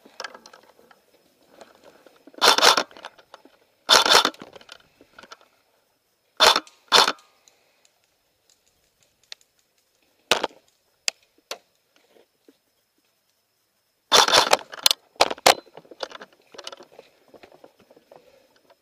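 Airsoft guns firing: two short bursts, then single shots spaced a second or so apart, and a quick run of shots about fourteen seconds in, with faint rustling of gear in between.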